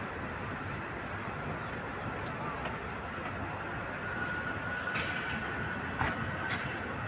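Rubber-tyred Paris Métro line 6 train running across the Bir-Hakeim viaduct, over a steady wash of city noise. A faint high whine comes up from about four seconds in, with a few sharp clicks.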